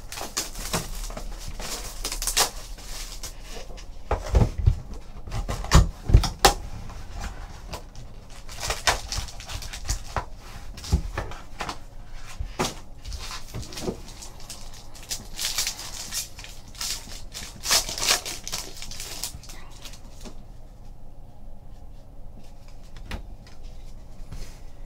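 Plastic shrink wrap crinkling as it is torn off a trading-card hobby box, then the cardboard box being opened and handled with several sharp knocks. Foil card packs rustle and crinkle as they are pulled out and opened.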